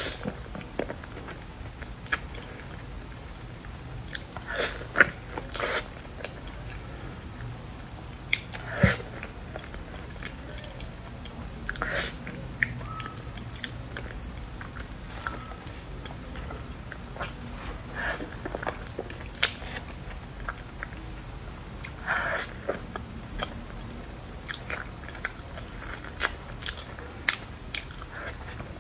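Durian flesh being eaten close to a clip-on microphone: soft wet chewing and lip smacks, in short scattered clicks and bursts.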